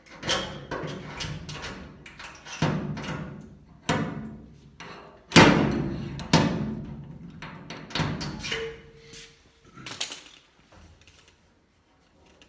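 Slide hammer from a stud-welder dent repair kit, its sliding weight slamming back against the stop about seven times, a second or two apart, each strike ringing through the sheet-metal panel. Each strike pulls on a stud welded to the panel to draw the dent out.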